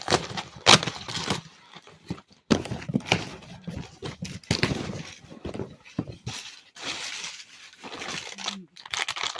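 A shipping box being torn open by hand and its packaging rustled and crinkled, in a run of uneven rips and rustles.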